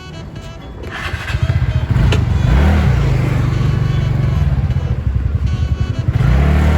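TVS Ntorq 125 Race XP scooter's single-cylinder engine running under way, growing louder from about a second in. Its note rises and falls as the throttle is opened and eased, once around two seconds in and again near the end.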